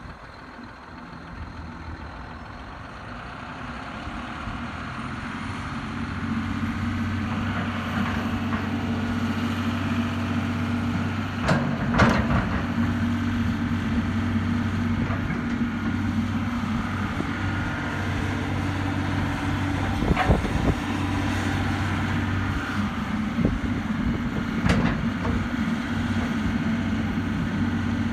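Diesel engine of a 2013 John Deere 250G excavator running. It grows louder over the first six seconds while a faint high whine rises, then holds a steady drone. A few sharp clanks come near the middle and again later.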